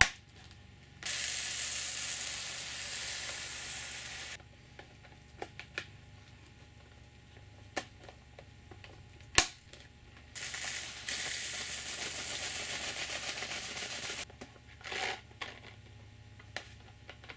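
Silica gel beads poured into 3D-printed plastic desiccant boxes: two pours, each a steady hiss lasting three to four seconds, with a few sharp clicks between them, the loudest about halfway through.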